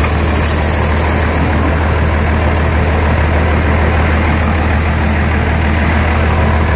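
Large diesel bus engine idling steadily with a deep, even hum.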